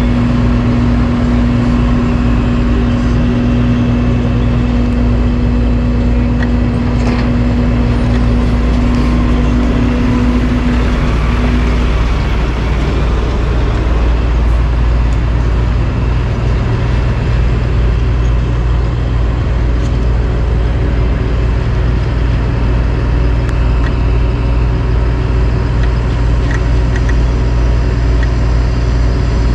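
Heavy diesel engines of dump trucks and an asphalt paver running, a loud, steady low rumble. A held tone in it stops about twelve seconds in.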